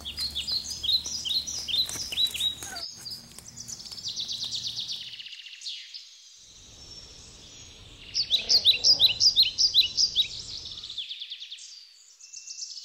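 Birds singing: series of short, high chirps and quick trills, loudest in a dense burst about eight to ten seconds in.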